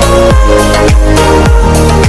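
Electronic dance music with a steady kick drum about twice a second over a deep bass line and held synth chords.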